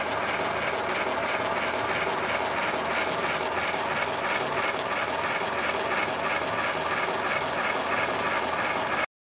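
Universal milling machine driving a gear hob through a spur gear blank: a steady machining noise with a faint regular pulsing and a high steady whine. It cuts off abruptly near the end.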